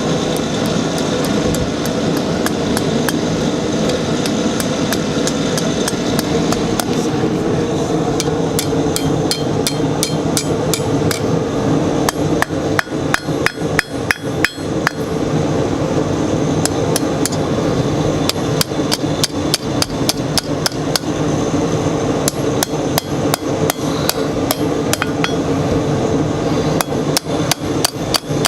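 Hand hammer striking hot steel bar on an anvil, quick repeated blows with a metallic ring, becoming dense and rapid after the first several seconds. A steady hum runs underneath.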